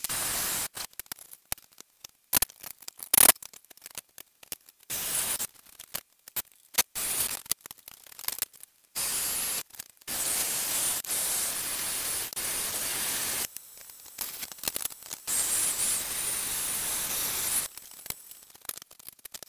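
Battery drill with a masonry bit boring pilot holes into a concrete wall, starting in short bursts and then running in longer stretches of a few seconds each in the second half.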